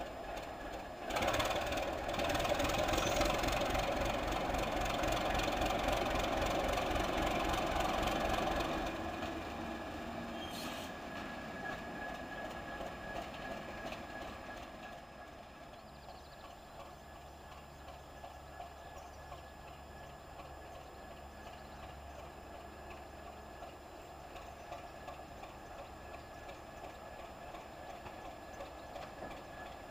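Class 751 'Bardotka' diesel locomotive's six-cylinder ČKD engine running under load, loud for the first several seconds with an even low throb, then falling back to a fainter steady rumble from about 9 seconds on as the locomotive draws away.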